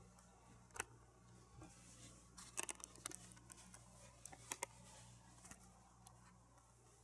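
Near silence: quiet room tone with a faint low hum, broken by a few light clicks and taps, one about a second in, a quick cluster in the middle, and a pair shortly after.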